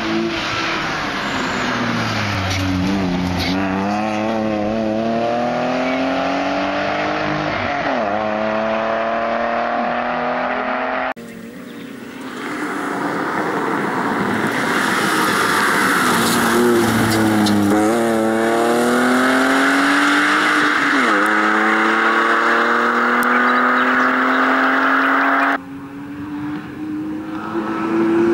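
BMW E36 323i's straight-six engine driven hard, its pitch climbing and dropping again and again as the throttle is worked while the car slides on dusty concrete, with tyre scrub underneath. The sound breaks off abruptly twice, about eleven seconds in and near the end.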